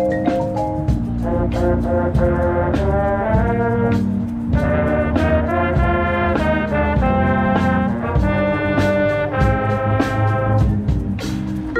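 Drum and bugle corps horn line playing loud sustained brass chords, with drum hits throughout. The chords change every second or so, with a brief break in the upper notes about four seconds in.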